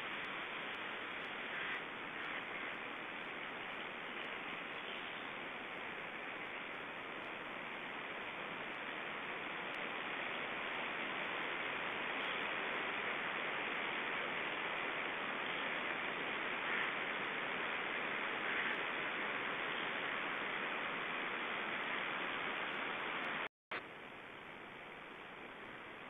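Steady hiss of static from a wildlife nest camera's microphone, with no distinct calls. The sound cuts out for a moment near the end, then comes back a little quieter.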